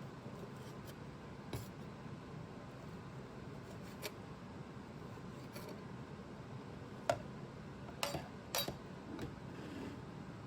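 Kitchen utensils and dishes being handled: a few scattered light clicks and knocks, the sharpest about seven seconds in and a small cluster around eight to nine seconds, over faint steady room noise.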